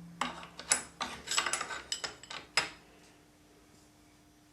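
Sharp metallic clinks and knocks of the milling machine's table locks being tightened by hand, a dozen or so irregular strikes over the first two and a half seconds, then it falls quiet.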